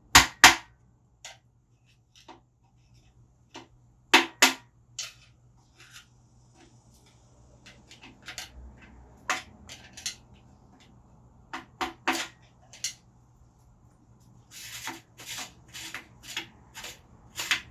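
A screwdriver worked into small notches on the motorcycle's parts to pry something loose: scattered sharp metal clicks and taps in twos and threes, then a few seconds of quick scraping and rubbing near the end.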